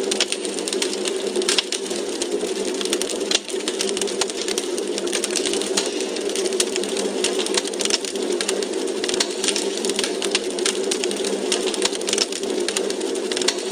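Wood fire crackling in a fireplace: a dense, irregular patter of sharp little pops and snaps over a steady low rush of the burning logs.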